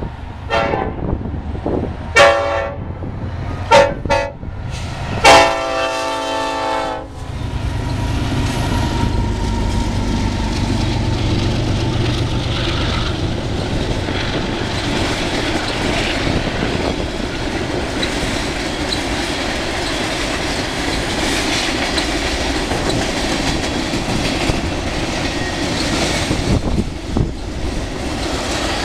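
Horn of a freight train led by an EMD SD70ACE diesel locomotive, sounding a series of blasts: two long, two short, then a final long blast of about two seconds. After that the locomotives' diesel engines pass close by, and a long string of freight cars rolls past with steady rail noise.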